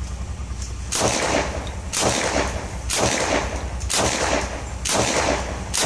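PPSh-41 submachine gun, chambered in 7.62×25mm Tokarev, firing five shots about a second apart, each with a short echo.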